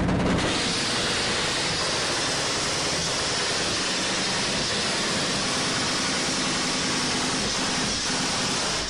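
Steady, loud rushing noise with no separate bangs or shots, cutting off suddenly near the end.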